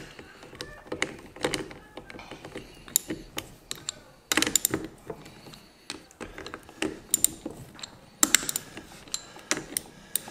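Ratchet wrench with a 14 mm socket clicking in short irregular bursts as it works the bolts loose on an air-suspension valve manifold.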